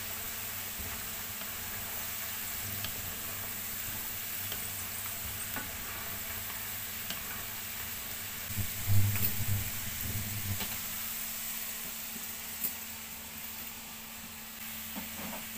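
Diced potatoes sizzling as they deep-fry in hot oil, browned and done, while a wooden spatula stirs them. About nine seconds in, a louder scraping clatter as a wire mesh strainer scoops the fried potatoes out of the pan.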